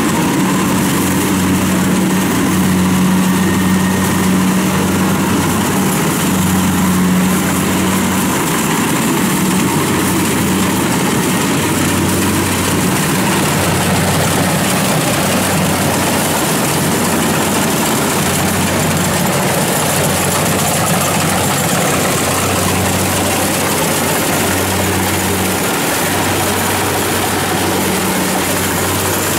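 Kubota DC70 combine harvester running steadily while cutting and threshing rice: a loud, even drone of its diesel engine and threshing machinery, with a constant low hum.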